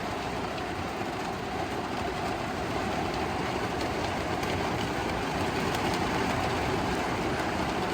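Heavy rain drumming steadily on the metal roof and body of a camper van, heard from inside.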